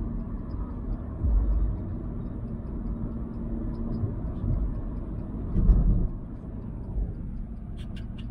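Inside the cabin of a petrol Honda City cruising on a highway: steady road and engine rumble, with a low drone for the first few seconds and two heavier low thumps, about a second in and near six seconds.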